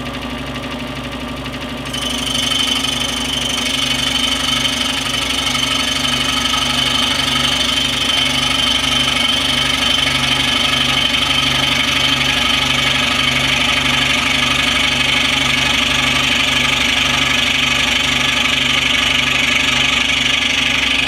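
Scroll saw running, its blade sawing steadily through a small wooden board. About two seconds in the blade bites into the wood and the cutting grows louder, holding steady from then on.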